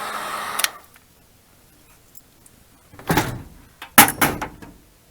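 Heat gun blowing, then switched off under a second in. A knock about three seconds in, and two sharper knocks a second later, which are the loudest sounds.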